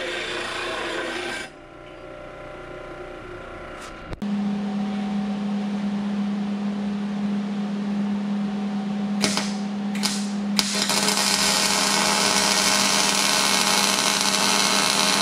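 A disc sander grinds the end of steel square tubing and cuts off about a second and a half in. Later a steady low hum runs, then two short bursts of sputtering followed by several seconds of continuous crackling as steel is MIG welded on the underside of a trailer frame.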